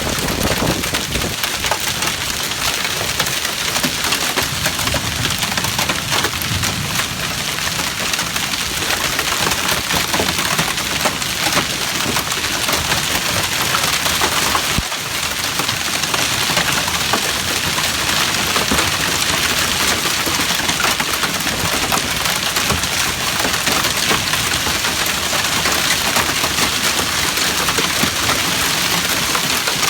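Hailstorm: countless hailstones striking hard surfaces in a dense, continuous clatter of small impacts, with a brief dip about halfway through.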